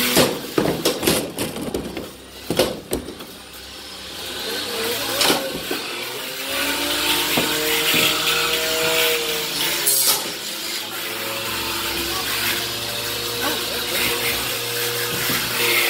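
Beetleweight combat robots fighting in an enclosed plastic arena: a flurry of sharp clattering impacts in the first three seconds and single hard knocks later, with an electric motor whine that rises and falls in pitch through the middle as the robots drive and collide.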